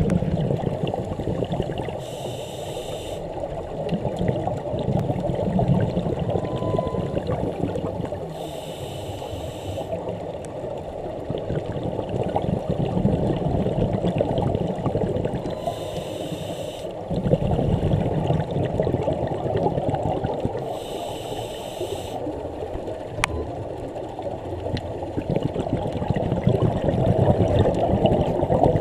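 Scuba diver breathing through a regulator, heard underwater: a muffled bubbling rumble that swells and fades, with a short regulator hiss four times, about every six to seven seconds.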